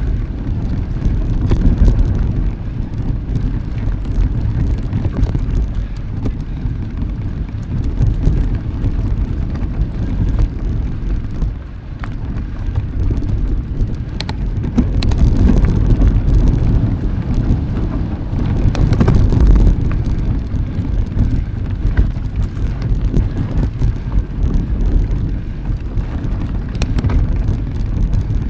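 Riding noise from a mountain bike: a steady low rumble of wind and tyres on the microphone, with scattered clicks and rattles.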